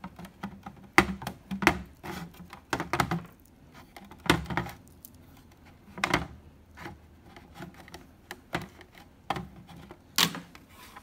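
Irregular plastic clicks and knocks as a white TP-Link router's case and swivel antennas are handled on a metal counter, with a few louder knocks among softer taps.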